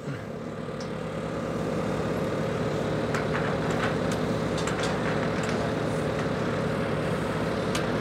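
An engine running steadily nearby, swelling over the first couple of seconds and then holding an even drone. A few faint clicks come over it near the middle and near the end.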